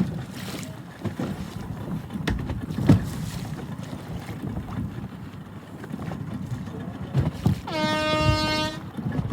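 Wind and water noise around a sailing dinghy, with scattered low knocks. Near the end a single horn blast sounds for about a second.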